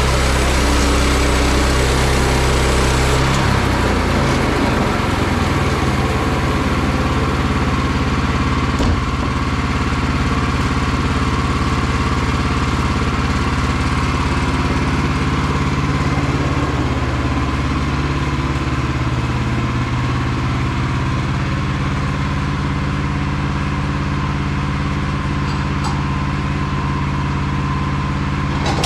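The petrol engine of a Woodland Mills HM122 portable bandsaw mill runs steadily. Its note changes about three and a half seconds in, then holds.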